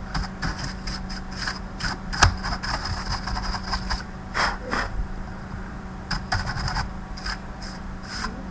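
Irregular plastic clicks, taps and rubbing from hands working over a laptop's opened keyboard bay, with one sharp click about two seconds in, over a steady low hum.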